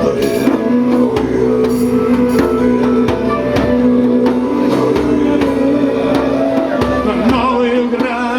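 Live band playing an instrumental passage between sung verses: drums keeping the beat over sustained held notes.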